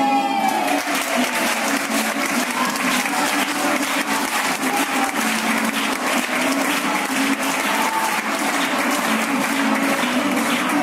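Music ends in the first moment and an audience breaks into steady clapping, with a few voices calling out over it.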